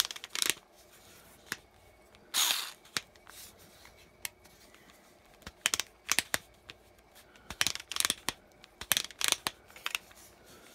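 Plastic torque-setting collar of a Hyper Tough 4V cordless screwdriver being forced round by hand, giving irregular clusters of sharp clicks and a brief scrape; the collar is sticking on its drill setting and turns only with effort.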